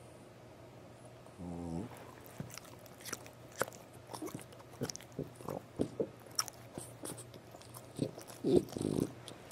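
French bulldog giving one short snore about a second and a half in, then a run of irregular mouth clicks and smacks like chewing or licking, with a louder burst near the end.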